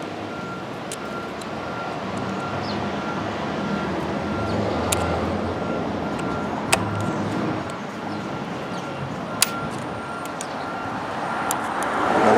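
Steady street traffic noise from passing buses and cars, with a faint pulsing beep running underneath. A few single sharp clicks, about four, stand out: small metal tool clicks.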